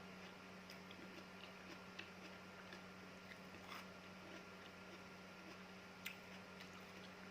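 Faint close-up chewing of crunchy fresh fruit: small scattered crunches and wet mouth clicks, with one sharper crunch about six seconds in.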